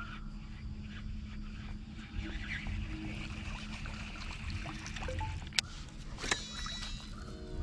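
A baitcasting reel being cranked to retrieve a lure, with two sharp clicks near the end as the reeling speeds up, over a low steady rumble of wind and boat noise with a faint hum.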